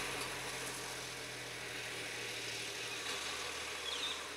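A motor vehicle engine running steadily at low revs, over a steady hiss; its hum drops and changes about three seconds in. A few short high chirps near the end.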